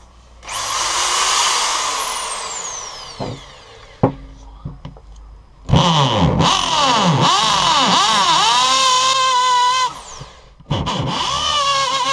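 Electric drill boring into the old wooden handle stub in an axe head's eye. It runs in three goes. The first winds down with a falling whine, the second starts about six seconds in with a motor pitch that rises and dips as the bit loads up in the wood before steadying, and the third starts near the end.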